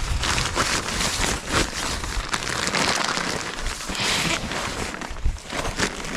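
Irregular rustling and crackling, with many scattered clicks and crunches.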